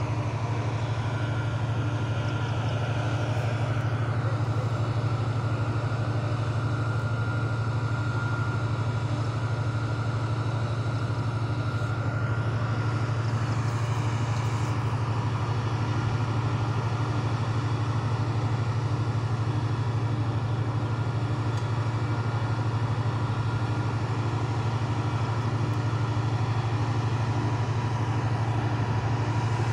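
Steady low mechanical hum of industrial machinery, with a few faint steady whines above it and a faint regular pulse, unchanging throughout.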